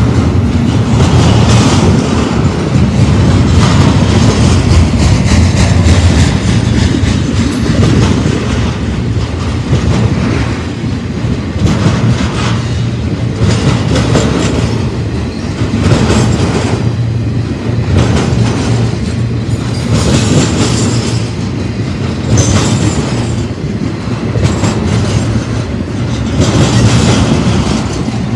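BNSF double-stack intermodal freight train's well cars rolling past close by: a steady rumble of steel wheels on rail, with a clickety-clack every second or two as wheelsets cross rail joints.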